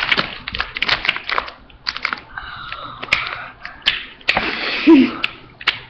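Plastic segments of a Rubik's Snake clicking irregularly as they are twisted into a ball shape.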